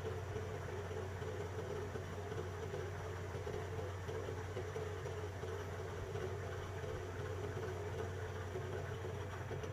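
A steady low hum, unchanging throughout, with no distinct clicks or knocks.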